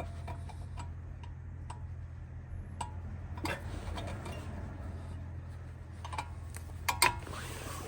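Small metallic clicks and taps of a brake caliper's retention spring being pressed into place by hand, with a louder clack about seven seconds in, over a steady low hum.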